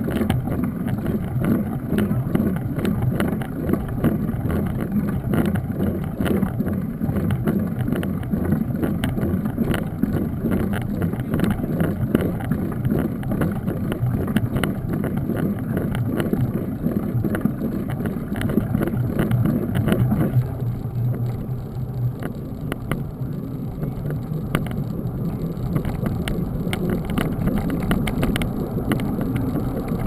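Ride noise of a mountain bike heard from a handlebar-mounted camera: a steady rumble of tyres rolling on a damp, rough road and air over the microphone, with constant small rattles and knocks as the bike goes over bumps.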